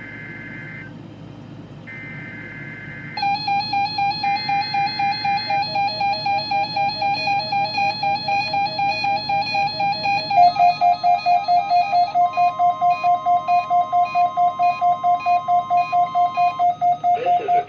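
Emergency-alert test tones: three short bursts of screeching digital data, the SAME header code, then a loud pulsing electronic alert tone of several pitches at once, beeping about four times a second. Its pitch shifts down slightly about ten seconds in.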